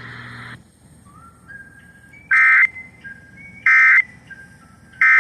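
Emergency Alert System end-of-message data bursts on weather radio: short, loud two-tone digital screeches, repeated about every second and a half. Two are heard in full, and a third begins near the end. They signal the end of the warning broadcast.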